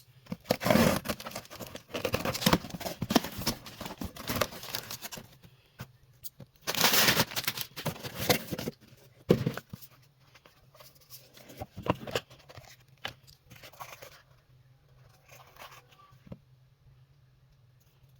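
Packaging being torn and unwrapped by hand: bursts of ripping and crinkling, then a few separate clicks and knocks as the box is handled, dying away after about 14 seconds.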